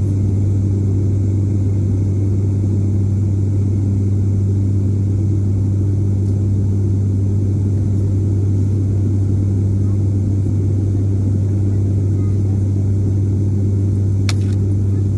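ATR 72-600 turboprop's propeller and engine droning steadily, heard from inside the cabin beside the propeller in flight: a loud, constant low hum with a rumble beneath it. A brief click near the end.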